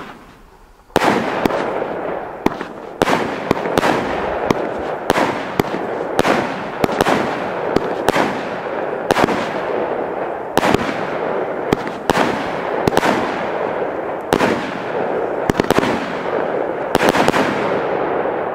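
Röder Farbrausch fireworks battery firing: a fast string of sharp shots, about one to two a second, over a steady rushing hiss. It starts about a second in and keeps going until it fades near the end.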